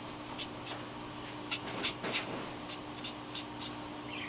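Tombow watercolor brush marker dabbed and stroked on cardstock: short, soft strokes of the felt tip on paper, irregular, a few a second. A faint steady hum runs underneath.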